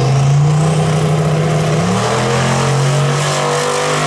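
Twin-turbo LS V8 of a box Chevy Caprice accelerating hard down a drag strip from the launch, its engine note loud and climbing in pitch.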